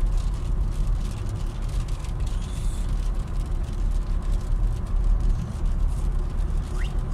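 Steady road noise of a moving car heard from inside the cabin: a continuous low rumble of engine and tyres.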